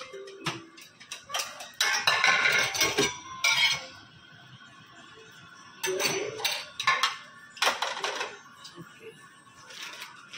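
Dishes and utensils clattering: plates, bowls and metal cutlery knocked and set down on a kitchen counter in a few busy bursts, the longest about two seconds in.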